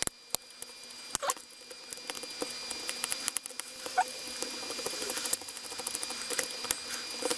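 Small clicks, taps and scratches of metal and plastic parts being handled and pried while a Märklin E63 model locomotive chassis is taken apart with a small screwdriver.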